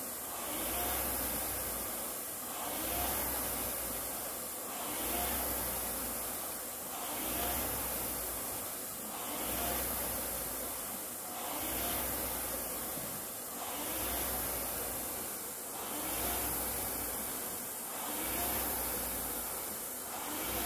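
Concept2 indoor rowing machine's air-resistance flywheel whooshing with each drive stroke, swelling and fading in a steady rhythm of about one stroke every two seconds, ten strokes in all, with a low hum from the spinning flywheel pulsing on the same beat.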